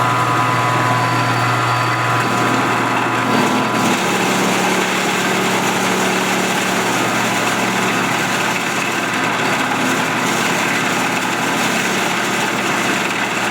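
Milling machine running with its end mill feeding down into a metal block: a steady motor hum under continuous cutting noise. A set of high steady tones fades out about four seconds in.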